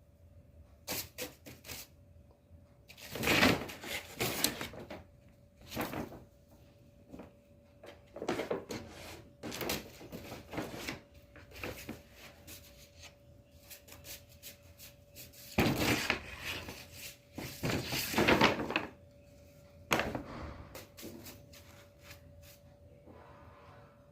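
A paper bag rustling and crinkling in irregular bursts as a cat plays in and against it, loudest in two spells, a few seconds in and again a little past the middle.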